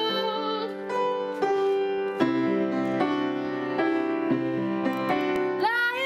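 Music: held pitched notes and chords changing every second or so, with a quick upward slide in pitch near the end.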